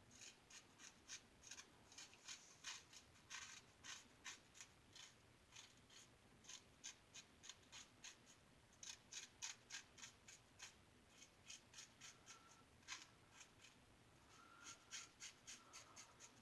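Star Lather Catcher single-edge razor with a GEM blade scraping through stubble in quick, short strokes, several a second, in runs with brief pauses. Faint.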